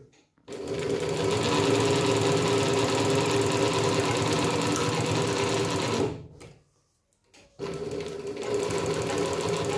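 Pfaff 1245 triple-feed (walking-foot) industrial sewing machine with a 750 W servo motor stitching through quilted padded fabric at a steady speed; it stops about six seconds in and starts again a second and a half later.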